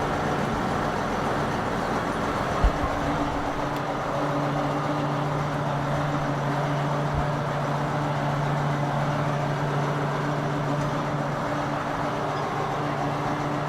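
Tractor engine running steadily at a constant pitch, with a single knock about two and a half seconds in.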